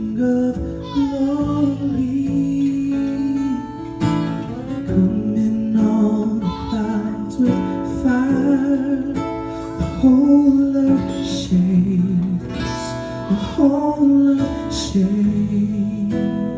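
Live worship song: a strummed acoustic guitar accompanying singing.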